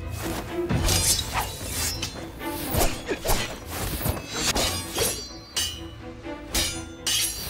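Fight sound effects from a sword-fighting scene: a quick series of sharp hits, swishes and a shattering crash, over action background music.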